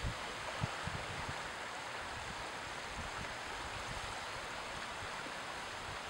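Small waves washing in shallow water, a steady hiss. A few low wind rumbles hit the microphone in the first second and a half.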